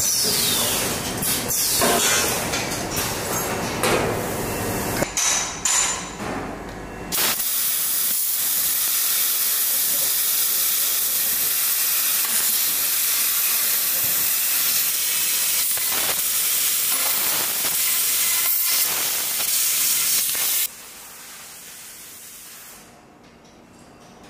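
3D Pro tube laser cutting machine cutting a metal tube: a steady, even hiss of gas from the cutting head, which cuts off suddenly a few seconds before the end. Before the hiss there are several seconds of uneven machine noise with a few sharp knocks.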